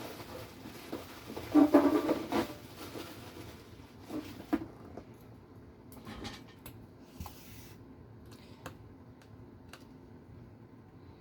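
Small metal and plastic RC car parts and hand tools handled on a workbench: scattered clicks and taps, with a louder clatter about two seconds in and lighter ticks after.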